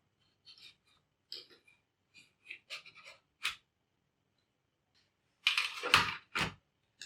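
Laptop parts being handled by hand: a run of small plastic clicks and scrapes, then a louder clatter of knocks and scraping about five and a half seconds in.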